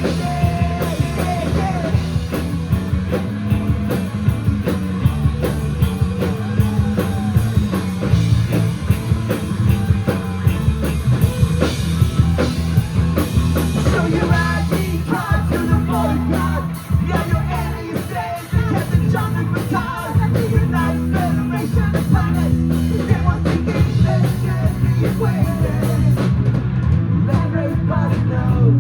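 Live rock band playing loud, with drum kit, electric guitars and bass guitar keeping a steady beat. The music drops back briefly a little past halfway, then picks up again.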